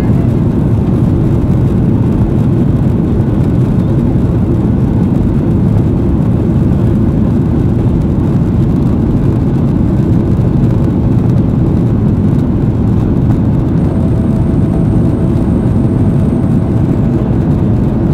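Steady low roar inside the cabin of a Boeing 737-800 climbing after takeoff: its CFM56 turbofan engines at climb power and the rush of air over the fuselage, heard from a seat beside the wing.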